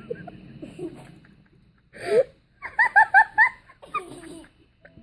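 A person laughing: breathy gasps, then a quick run of five short, high-pitched laughs about three seconds in.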